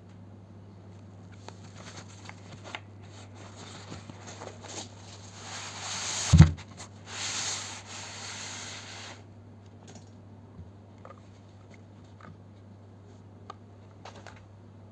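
Packaging being handled during an unboxing: rustling, scraping and tearing that builds up, with one loud thud about six seconds in. A few light clicks and taps follow.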